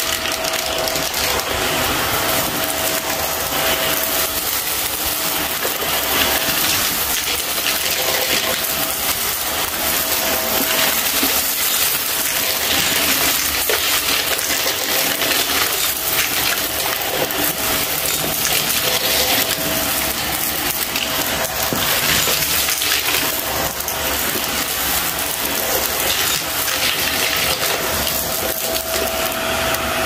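Small bagless upright vacuum cleaner running on shag carpet with a steady motor whine, sucking up confetti and small crunchy debris that crackles and rattles through the nozzle and into the dust cup.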